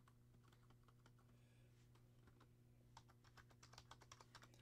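Faint computer keyboard typing: scattered key clicks that quicken into a fast run about three seconds in, over a steady low electrical hum.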